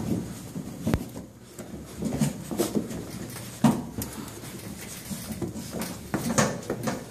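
Hound-mix puppies moving about: irregular soft rustling and scattered taps, with one sharp knock about a second in.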